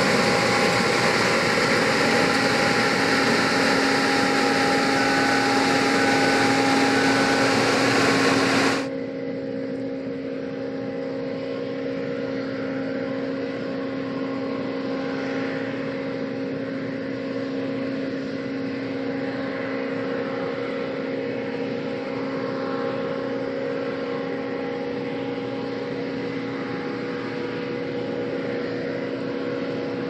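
John Deere 9780i CTS combine harvester running as it harvests rice: a steady machine drone with several steady whining tones. About nine seconds in, the sound drops abruptly to a quieter, duller version of the same drone.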